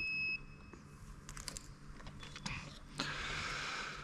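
High-pitched electronic beep from an insulation resistance tester. It ends sharply about a third of a second in, at the end of a test on a battery module. A few faint clicks and about a second of rustling handling noise follow near the end.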